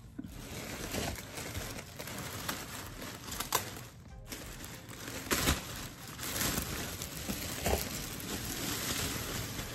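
Clear plastic garment bag crinkling and rustling as a blazer is pulled out of it, with sharper crackles every second or so.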